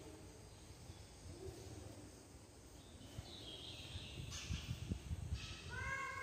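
Faint background ambience with a low rumble, a short run of high chirps about three seconds in, and a brief pitched tone starting near the end.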